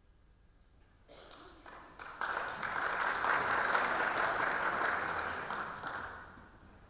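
Brief audience applause: a few scattered claps about a second in, swelling into full clapping, then dying away after a few seconds.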